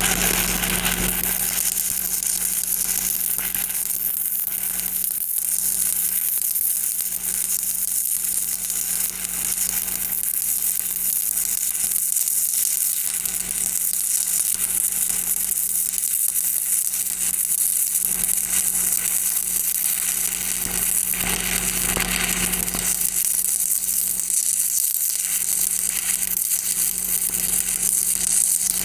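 Stick welding arc burning a 3/16-inch electrode, crackling and sizzling steadily through a downhill cap pass on pipe, over a steady low hum.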